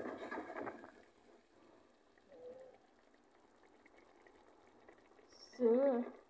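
Liquid sloshing and pouring in the pot of chicken curry for about the first second, then quiet simmering. Near the end comes a brief wavering voice-like sound, the loudest thing here.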